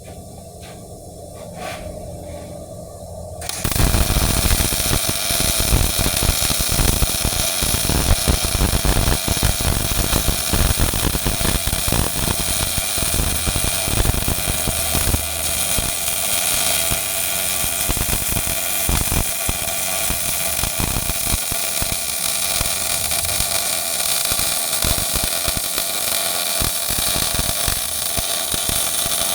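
MIG welding arc crackling steadily as a bead is laid on pipe fittings. It strikes about three and a half seconds in, after a few faint clicks.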